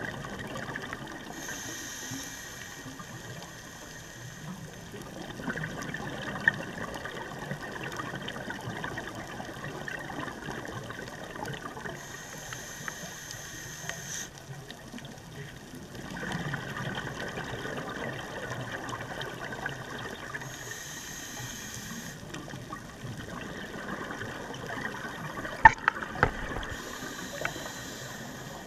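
Scuba breathing through a regulator, heard underwater: a short hissing inhale every several seconds, each followed by a longer rush of exhaled bubbles. A few sharp clicks, the loudest near the end.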